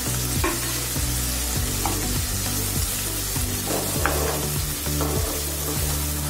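Chopped onions sizzling in hot oil in a nonstick kadhai, with a wooden spatula scraping through them a few times as they are stirred. Soft background music underneath.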